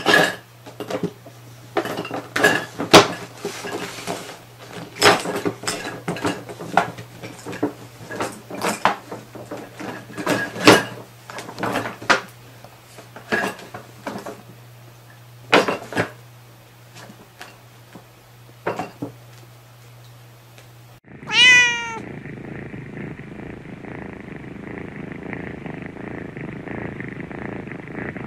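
Clear plastic bag of Christmas baubles crinkling and rattling as a cat paws and pushes it, with many sharp clicks of the baubles knocking together. About three-quarters of the way in the sound cuts to a single cat meow falling in pitch, followed by a steady purr.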